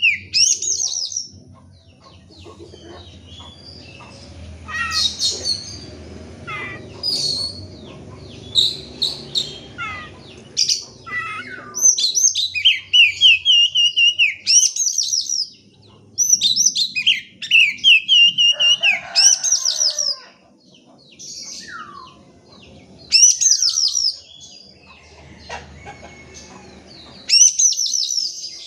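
Oriental magpie-robin singing a loud, varied song. It gives phrases of rapidly repeated high notes and trills, with short pauses between phrases.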